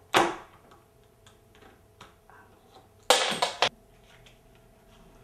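Playing cards being handled at the table: a sharp clack just after the start, then a short, loud riffling burst of the deck about three seconds in, with faint clicks between.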